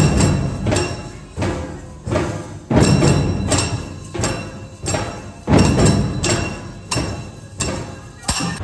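Procession troupe of large barrel drums (dhol) and hand cymbals playing, heavy drum strokes in a steady rhythm with cymbals ringing on the beats. It cuts off abruptly near the end.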